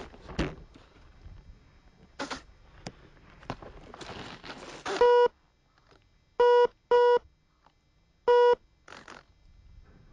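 Four short electronic beeps of one steady low-pitched tone: one about halfway through, two close together a second and a half later, then one more. They are preceded by rustling and light knocks from handling.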